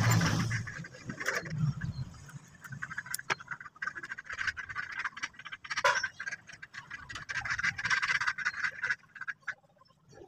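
Small clicks and rubbing scrapes from hands handling insulated wires and a metal alligator clip while a rubber boot is pushed onto the clip. A dull thump sounds at the start.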